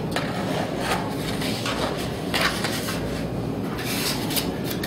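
Puzzle lamp pieces being handled and hooked into one another: the stiff pieces rub, slide and click against each other in short, irregular bursts, over a steady low background hum.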